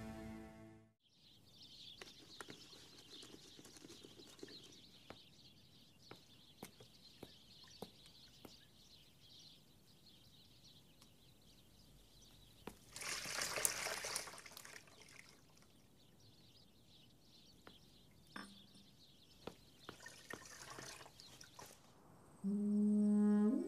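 Faint water sounds of bathing: scattered drips and a trickle, with a louder pour of water about thirteen seconds in.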